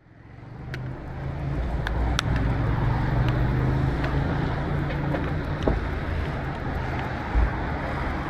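City street ambience with the steady rumble of road traffic, fading in over the first couple of seconds, with scattered short clicks and taps.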